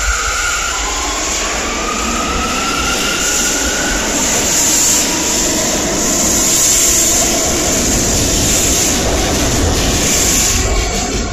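R179 New York City subway train picking up speed along an underground platform: its motor whine rises in pitch over the first few seconds, then the steady rumble and hiss of wheels on rail as the cars pass close by.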